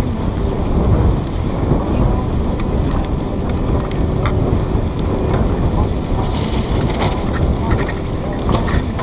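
Steady wind rushing over the microphone while moving along a trail, with scattered sharp clicks and rattles, more of them in the second half.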